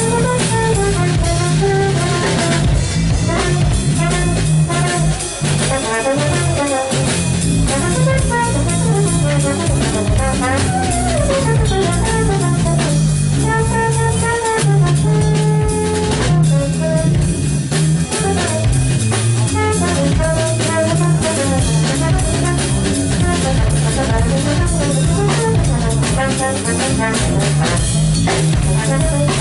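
Live jazz band playing: a trombone carries held and sliding melodic lines over a drum kit and keytar, with a steady low bass part underneath.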